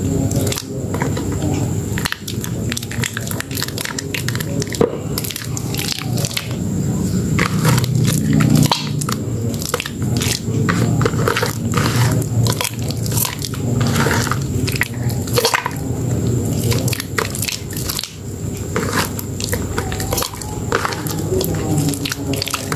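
Hands squeezing and kneading soaked, mushy Dermythol Green soap and thick lather in a plastic basin: continuous wet squishing with dense crackling and popping of the foam.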